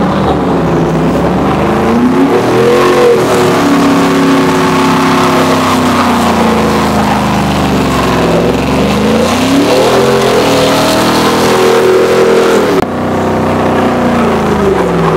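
Pickup truck engine revving hard through a burnout, its pitch climbing and falling again and again as the rear tyres spin in a cloud of smoke. Near the end the revs drop suddenly.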